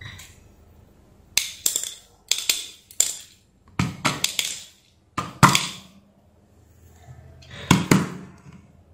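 Small metal parts of a cordless drill's planetary gearbox clattering and rattling as the housing is handled and knocked, in about five short bursts of sharp clicks and knocks with pauses between.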